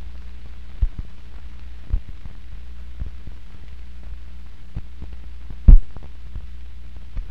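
Run-out of a 16mm film's soundtrack: a steady low hum with about six scattered pops and clicks, the loudest a little before the end.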